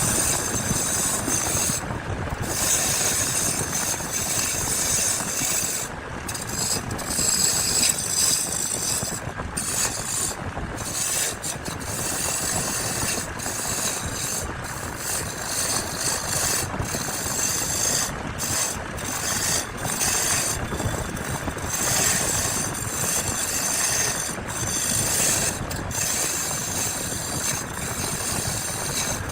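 A woodworking power tool running continuously, a steady mechanical noise with a high hiss that dips briefly every second or few.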